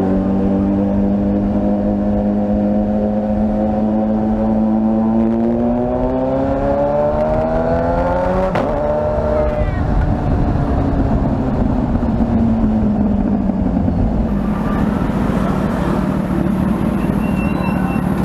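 Car engine and exhaust during a hard acceleration pull: the note holds steady, then climbs in pitch for about three seconds. A sharp crack about halfway through is followed by the engine note falling away and settling back to a steady cruise.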